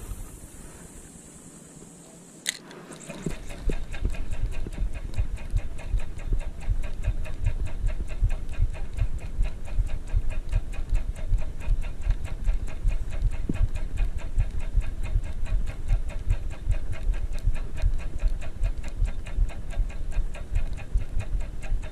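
Spinning reel being cranked steadily to retrieve line, its gearing giving a rapid, even ticking over a low rumble. The cranking starts about three seconds in, just after a single sharp click.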